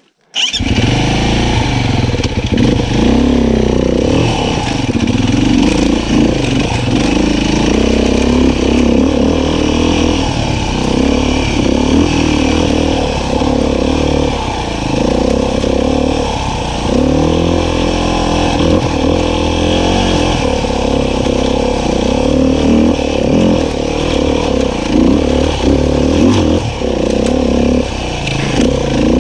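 Beta 500 RR-S single-cylinder four-stroke dirt bike engine running while riding, its pitch rising and falling as the throttle opens and closes. The engine sound comes in abruptly just after the start.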